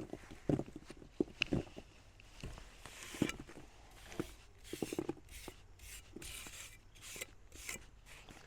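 Trowel scraping and pressing wet chinking mix into the gaps between logs, in short irregular strokes with a few soft knocks.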